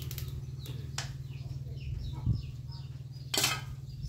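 Chicken pieces being dropped into an aluminium cooking pot, with a few knocks, then an aluminium pot lid set on with a short metallic clatter near the end. A steady low hum runs underneath.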